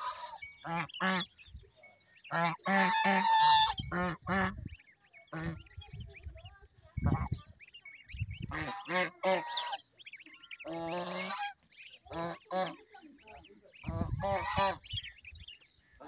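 Domestic white geese honking: short calls in clusters of two to four, with the loudest run about three seconds in.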